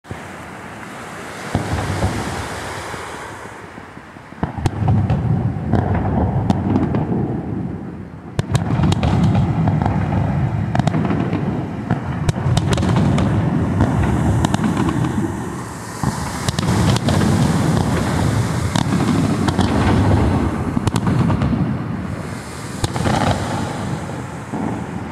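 Fireworks display: a continuous barrage of aerial shell bursts, deep overlapping booms mixed with sharp crackling pops, quieter for the first few seconds before it builds.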